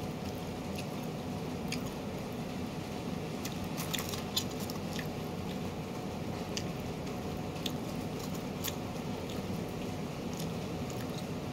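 A person chewing crunchy broccoli close to the microphone, with scattered crisp crunches.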